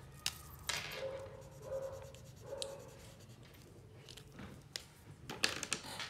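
Wax crayon rubbing on paper in a few short colouring strokes, with sharp clicks and knocks as crayons are set down and picked up on the table, loudest near the end.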